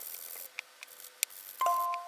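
A few light, sharp clicks over a faint hiss, then a bell-like mallet note about one and a half seconds in, the start of a tinkling music-box-style background tune.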